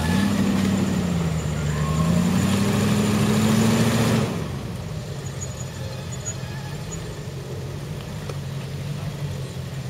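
Range Rover V8 engine revving under load as the truck tries to climb a steep muddy slope, its pitch dipping and then rising. About four seconds in it drops suddenly to a lower, steady run.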